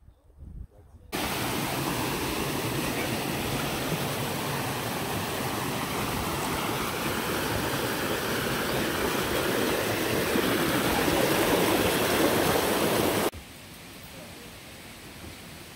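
Mountain stream rushing down a small cascade over granite slabs: a steady, even rush of water that starts suddenly about a second in and cuts off sharply near the end, leaving only faint background.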